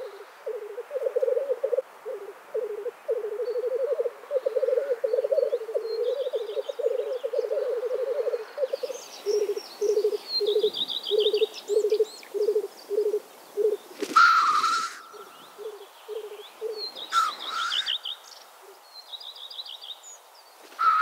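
Black grouse cocks displaying at a lek: the low, continuous bubbling 'rookooing' song, which breaks into separate short phrases after about nine seconds. Loud hissing 'sneeze' calls come about fourteen and seventeen seconds in and again at the very end, over faint high trills of small birds.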